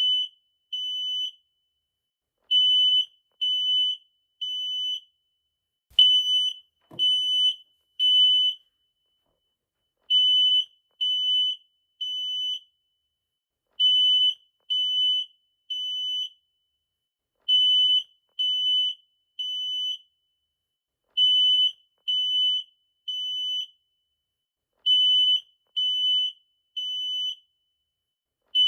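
Smoke detector alarm sounding in the temporal-three pattern: three high-pitched beeps of about half a second each, then a pause of about a second and a half, repeating over and over. This three-beep rhythm is the standard evacuation signal for fire.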